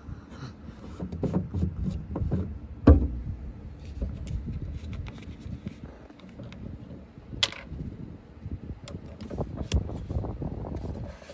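Handling noises of unscrewing a portable outboard fuel tank's plastic cap and an oil bottle's cap on a metal boat deck: scrapes, rubbing and scattered clicks, with one sharp knock about three seconds in and smaller knocks later.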